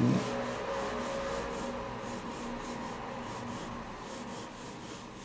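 Pencil scratching across drawing paper in repeated short strokes, over a faint steady hum. A brief low thump comes at the very start.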